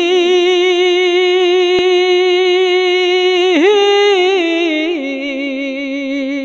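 A solo voice singing long wordless held notes with vibrato, unaccompanied, as the a cappella opening of a Bangla devotional song; the held note steps down in pitch about halfway through and again near the end.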